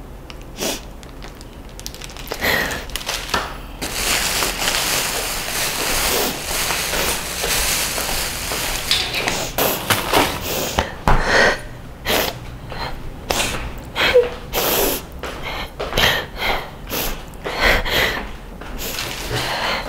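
A person sniffling and taking short gasping breaths, many quick noisy sniffs one after another, after several seconds of a steady rush of breath-like noise.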